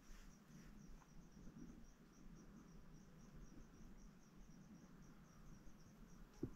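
Faint, steady chirping of an insect, high-pitched and even, about four to five chirps a second, over otherwise near-silent surroundings.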